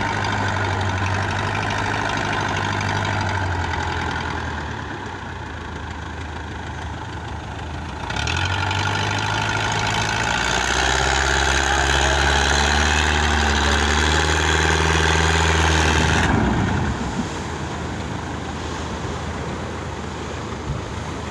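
A fishing boat's inboard engine running steadily, growing louder and higher-pitched from about eight seconds in. The engine sound ends about two thirds of the way through, leaving the rush of breaking surf and wind.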